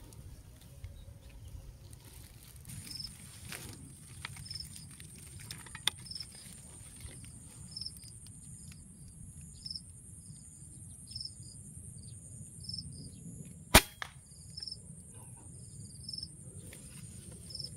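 A single airgun shot, a sharp crack about 14 seconds in, loud against a quiet field. Short high chirps repeat throughout, over a steady high hiss.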